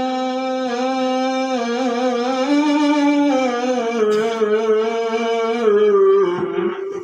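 A man's solo voice chanting Arabic in long held melodic notes with ornamental turns: a qari's melodic Quran recitation. The line eases off near the end.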